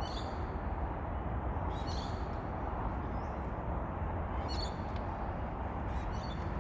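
Several short, high bird calls over a steady low background hum.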